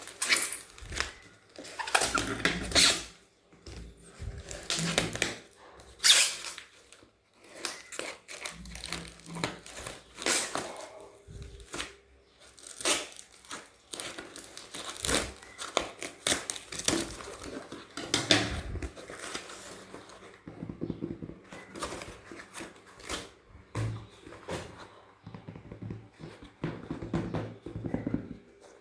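A mail parcel being opened by hand: its packaging torn and crumpled in irregular bursts of tearing and crinkling.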